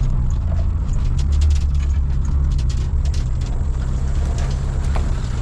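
Daihatsu Feroza four-wheel drive running slowly along a rough dirt track: a steady low engine drone, with frequent clicks and knocks from the vehicle jolting over the ruts.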